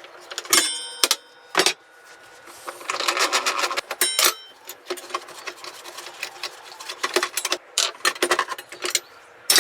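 Metal clinks, taps and rattles of a 6mm grooving blade being fitted onto a saw's arbor. Two sharper strikes, about half a second and four seconds in, leave the steel blade ringing briefly.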